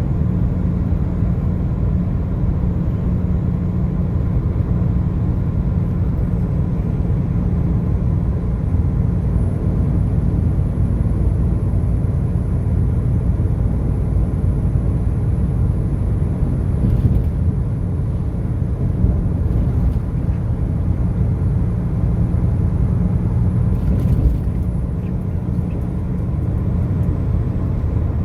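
A car driving: steady low rumble of engine and tyres on the road.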